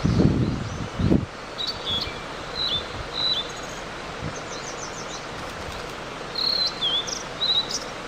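A small songbird chirping in short, high notes and quick trills at irregular intervals, over a steady outdoor hiss. Two low thumps come in the first second or so.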